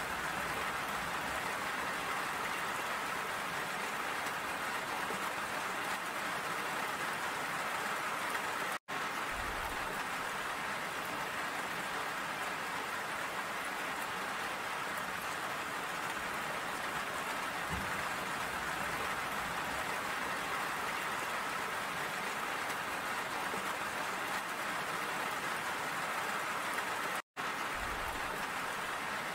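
Steady rain falling and pattering on wet surfaces, with two brief cuts to silence, about nine seconds in and near the end.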